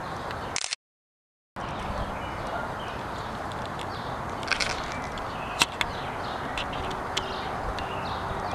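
Outdoor background ambience: a steady hiss with a few faint chirps and sharp clicks. The sound drops to dead silence for under a second near the start.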